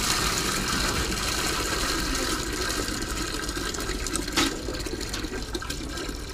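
Water draining from a fire-sprinkler pipe in a thin stream and splashing steadily into a plastic bucket, gradually getting quieter. A single sharp knock about four seconds in.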